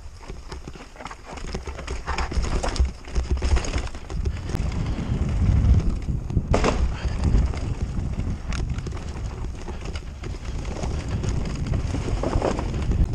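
Haibike AllMtn e-mountain bike rattling and knocking as it rolls fast down a dirt trail and over wooden boardwalk slats, with a continuous low rumble and a run of sharp knocks from tyres, suspension and chain.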